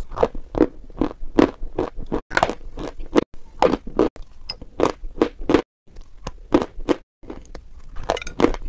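Biting and chewing crunchy white dessert pieces: a steady run of sharp crunches, two or three a second, broken by two brief gaps of silence.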